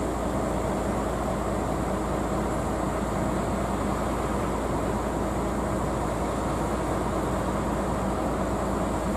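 Steady hum and hiss of idling railway equipment from locomotives and a train standing at a platform, with a constant thin high whine and no change in level.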